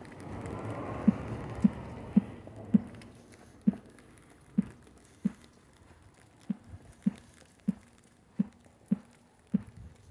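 Footsteps of a person walking on wet pavement, a dull knock roughly every half second, with an even rushing hiss that stops about two seconds in.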